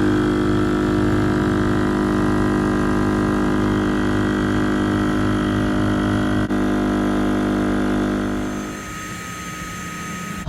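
Shark2S rechargeable electric inflation pump running steadily in its compressor stage, pumping the kayak's side chambers up past 1.2 psi toward the set 2.2 psi. It has a steady whine with a pulsing low hum, and turns markedly quieter about eight and a half seconds in.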